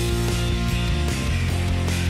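Background rock music with electric guitar and drums, playing steadily.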